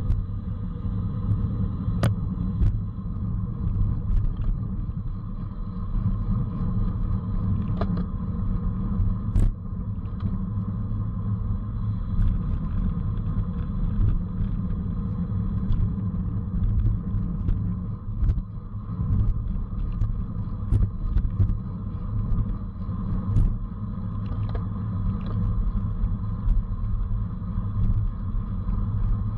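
Steady low wind rumble and road noise on a camera mounted on a racing bicycle at speed, with scattered sharp clicks.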